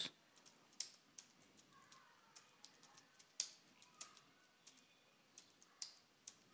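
Faint, irregular keystrokes on a computer keyboard: someone typing.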